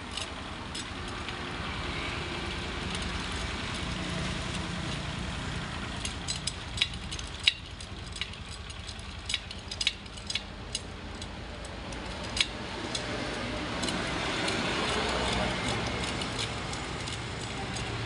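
An engine idling steadily, with scattered sharp metallic clicks of steel wire spokes knocking against each other and the hub as they are threaded into a motorcycle wheel.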